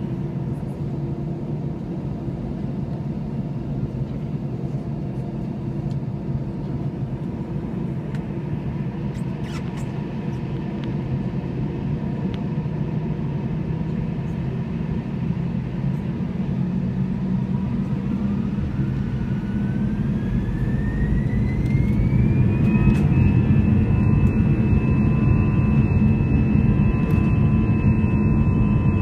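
Airbus A321 jet engines heard inside the cabin: a steady low rumble, then past the middle a whine rising in pitch as the engines spool up to takeoff thrust, levelling off into a louder, steady high whine over the rumble.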